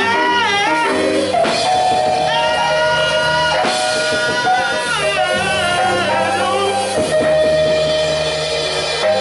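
Live church band with drums and guitar playing behind a voice singing long, wavering melodic runs.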